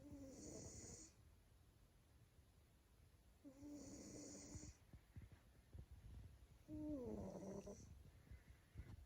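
Male Maine Coon cat snoring while asleep: three soft snores about three seconds apart, each a short nasal tone with a hiss on top, the last one falling in pitch.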